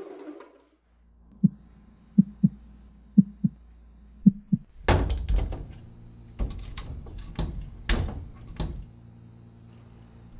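Muffled knocking on a door, mostly in pairs of knocks, then a run of louder, harder bangs on it from about five seconds in.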